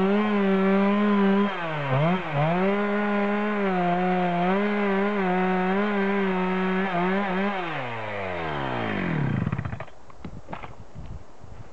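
Two-stroke chainsaw at full throttle, cutting into a standing conifer trunk behind an open face notch, as in the felling cut. Its engine note dips briefly about two seconds in, then holds high and steady. Near the end the throttle is released and the engine winds down, followed by a few faint ticks.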